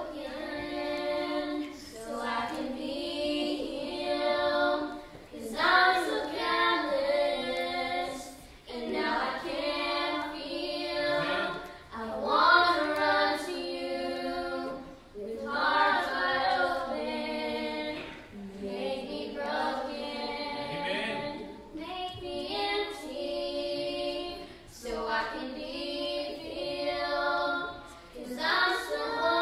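A small group of children singing unaccompanied, in sung phrases of a few seconds each with short breaks between them.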